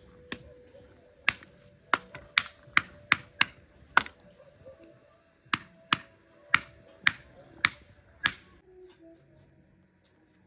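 Dry firewood snapping and cracking at a bonfire pit: about a dozen sharp, loud cracks roughly half a second apart, stopping a couple of seconds before the end.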